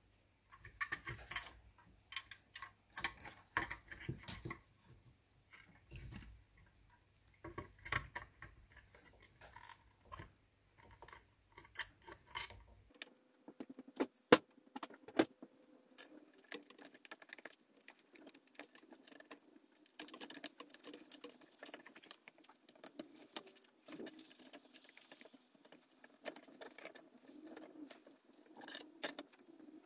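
Irregular clicks, taps and light scraping of small hard parts being handled during work on an old radio alarm clock. A low hum under the handling stops about thirteen seconds in.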